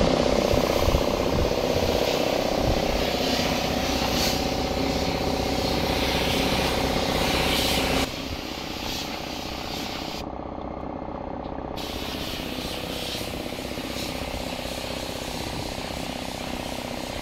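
Air spray gun hissing as paint is sprayed, over a steady machine hum with a fixed pitch. The hiss stops for about a second and a half a little past halfway, and the whole sound is quieter in the second half.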